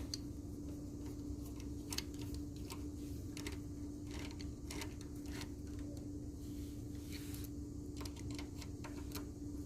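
Irregular small clicks and taps of a screw being driven back into a motorcycle ignition switch mount, over a steady low hum.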